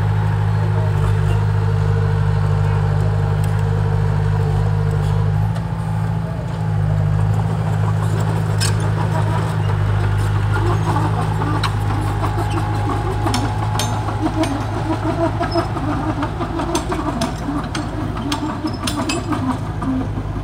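Small Komatsu crawler dozer's diesel engine running steadily as it pushes soil, with a clatter of clicks and knocks joining in over the second half.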